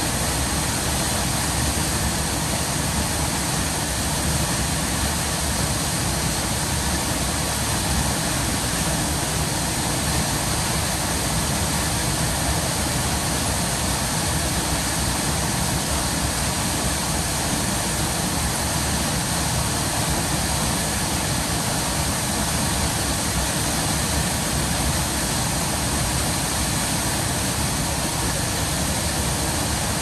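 A large waterfall pouring into its plunge pool: a steady, even rush of falling water that does not change.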